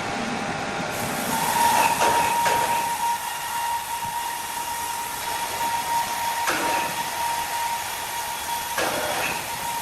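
Steady machine noise with a hiss and a constant high whine, broken by a few short knocks.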